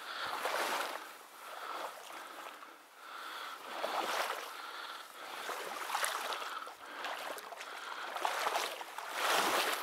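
Water swishing and splashing in repeated surges every second or two, from movement through the reedy shallows of a lake, with a faint steady high hum underneath.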